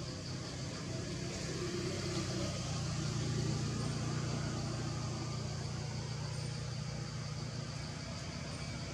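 Steady low engine-like rumble, as of a distant motor vehicle, swelling slightly midway, over a constant background hiss.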